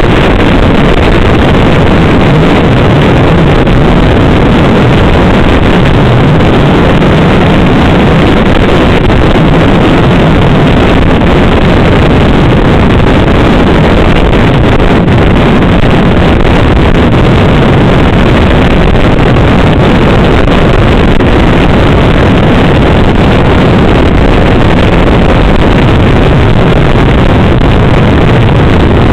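Snowmobile engine running steadily at travelling speed, loud, mixed with wind rushing over the microphone.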